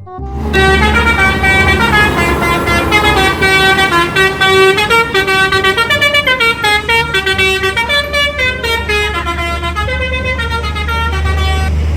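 Bus telolet horn, the multi-tone air horn of an Indonesian bus, playing a tune of stepped notes that rise and fall, over a steady low engine rumble.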